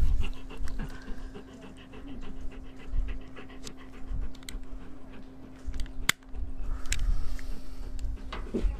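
Automatic wire stripper working on a navigation-light cable: small clicks and a sharp snap about six seconds in, over a steady low hum.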